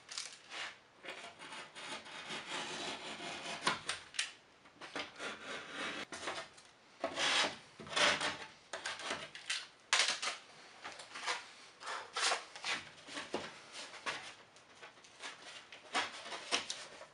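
Utility knife cutting through drywall in irregular scraping strokes, with short pauses between, as a hole is cut out to fit a square patch.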